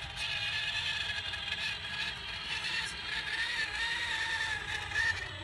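HPI Venture RC crawler's electric motor and drivetrain whining as it wades through muddy water, the pitch rising and falling with the throttle and a brief louder burst near the end, with water sloshing around the wheels.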